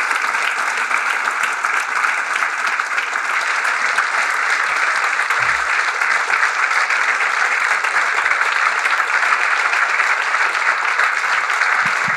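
Audience applauding steadily: dense clapping from many hands at once.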